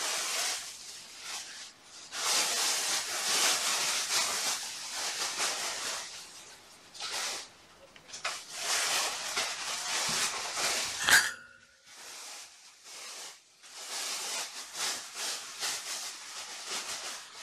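Plastic trash bag rustling and crinkling in three long stretches of noise, with one sharp click about eleven seconds in.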